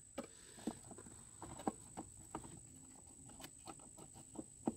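Faint, irregular clicks and taps as a lawn mower's belt guard is handled and worked into place under the deck, with a sharper knock near the end.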